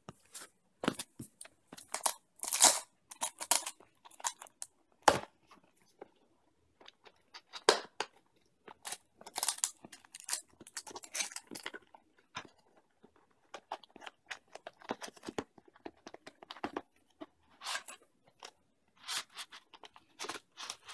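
A small cardboard box is opened and its foam packaging is pulled out, giving irregular rustles, scrapes and clicks.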